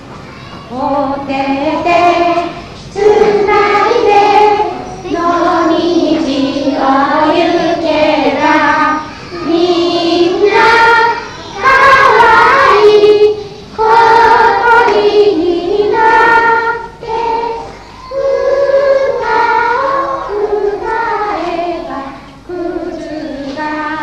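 Song sung by high children's voices, phrase after phrase of held melodic notes with short breaths between them.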